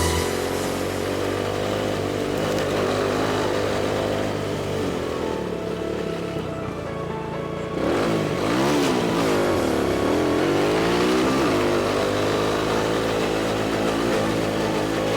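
ATV engines running under way, their pitch rising and falling with the throttle; from about halfway through, two engine notes glide up and down across each other.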